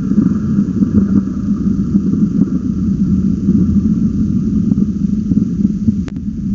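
Heavy thunderstorm rain drumming on the wooden falcon nest box, a loud, steady, crackling low rumble over a constant low hum, with one sharp click about six seconds in.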